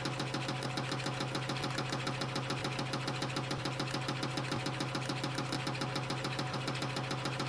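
YHM CF Series CNC spring coiling machine forming 0.6 mm wire into compression springs at 420 a minute: a fast, even mechanical clatter of about seven strokes a second, one per spring, over a steady motor hum.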